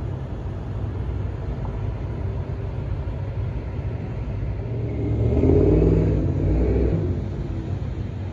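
A procession of cars, Ford Mustangs among them, driving past one after another with their engines rumbling. The rumble swells as a louder car goes by close about five to seven seconds in.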